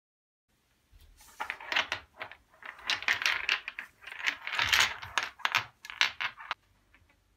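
Smooth black basalt massage stones clacking and knocking against one another as they are handled in a cloth bag and on a towel, many quick clicks from about a second in, stopping near the end.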